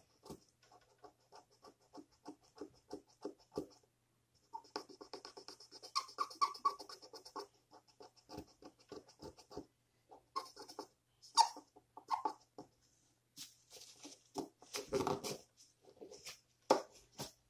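Felt tip of an Expo dry erase marker scrubbing over the painted decal of a die-cast Hot Wheels car in quick short strokes, about four a second at first, then in a denser run. Near the end a paper towel rubs the car, with a louder handling bump.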